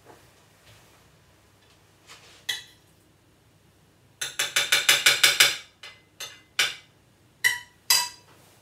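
Metal cutlery tapping and clinking against a china plate and bowl. A quick run of taps lasts about a second and a half, then several separate clinks follow, the last ones ringing briefly.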